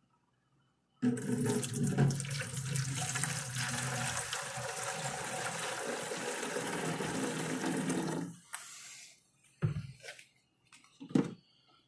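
Vinegar poured from a jug into a plastic 1-gallon water bottle: a steady splashing pour that starts about a second in and stops abruptly after about seven seconds, followed by a few short knocks.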